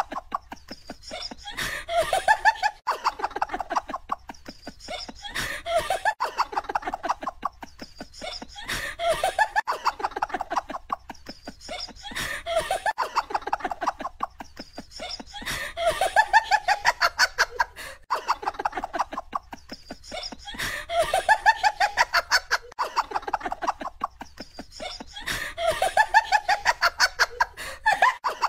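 Canned laughter on a loop: the same burst of rapid laughing repeats about every four seconds.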